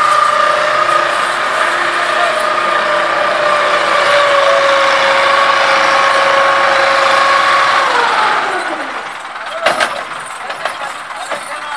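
Ford 4600 tractor with a Ford 5000 diesel engine fitted, running hard at high revs and slowly sagging in pitch as it strains to haul a heavily loaded trolley up a bank. About eight seconds in, the revs fall away sharply as the pull fails, and a single sharp knock follows.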